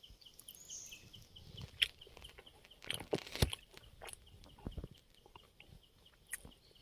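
A steady, rapid high chirping, about five chirps a second, with scattered clicks and knocks, the loudest about three seconds in.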